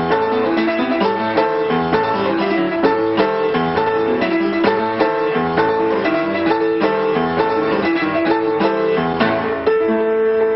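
Background instrumental music led by a keyboard playing quick notes, changing to longer held notes near the end.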